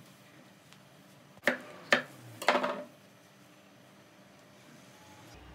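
Three sharp knocks about a second and a half in, the last a short clatter with a little ringing: a kitchen knife being handled and set down on a wooden cutting board and tabletop.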